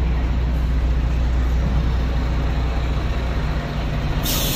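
Heavy truck's diesel engine running low and steady as it creeps forward, with a short hiss of released air brakes about four seconds in.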